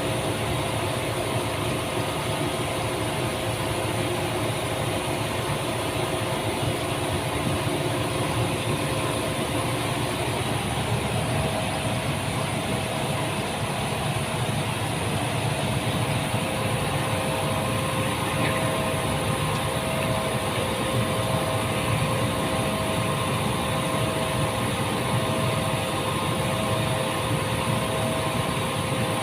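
Machinery running steadily with an even, constant hum. From about eleven seconds in, a mid-pitched tone pulses on and off roughly once a second over it.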